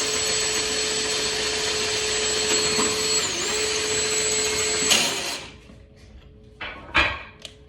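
Electric drill boring into a brick wall, its steady whine dipping briefly as the bit loads up a little past three seconds in. It stops at about five seconds, followed by a few short knocks.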